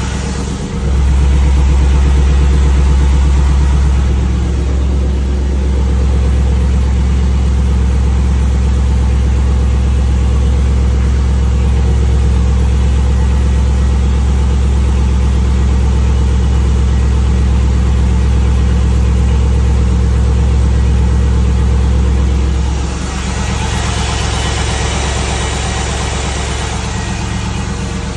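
LS1 V8 engine running steadily at idle. Near the end its deep drone drops away and the sound gets a little quieter.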